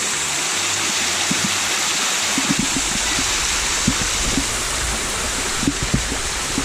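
Creek water rushing steadily over rocks. From about two and a half seconds in, a low rumble and scattered soft knocks join it.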